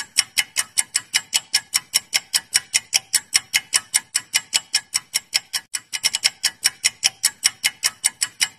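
Fast clock-ticking sound effect for a quiz countdown timer: evenly spaced sharp ticks at about five a second, with a brief hitch about six seconds in.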